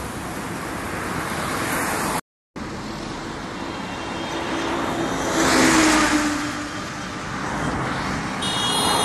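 Highway traffic noise, with a vehicle passing close by about five to six seconds in, its engine swelling and then fading. The sound cuts out briefly about two seconds in.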